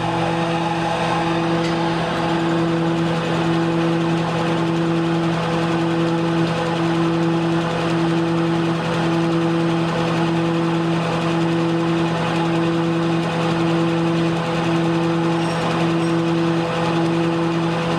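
Kirk-Rudy high-speed RFID hangtag encoding machine running and feeding tags along its conveyor at speed: a steady motor hum with a higher tone that pulses about once a second.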